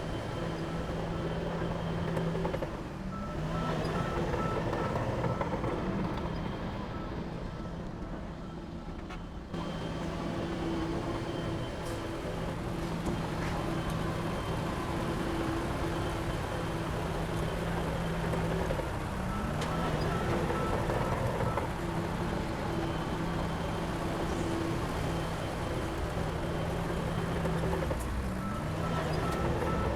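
Heavy diesel machinery running steadily, with its engine note dipping and changing a few times. A faint repeating beep, like a reversing alarm, comes in at times.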